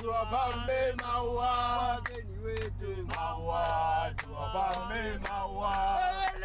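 Men singing a chant-like song, with long held notes over a sharp, even beat.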